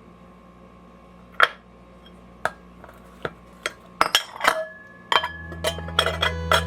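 Dishes and cutlery clinking: single sharp clinks a second or so apart, then several in quick succession about four seconds in. Soft guitar background music comes in near the end.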